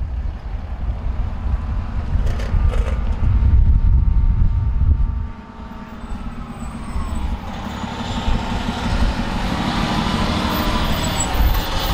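Road vehicles driving past close by: a pickup towing a travel trailer rumbles by first, then a Pierce fire engine's diesel engine grows louder as it approaches and passes in the second half.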